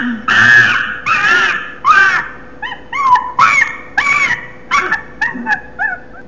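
An animal's high-pitched cries: a string of short yips and whimpers, each rising then falling in pitch, about two a second, getting shorter toward the end.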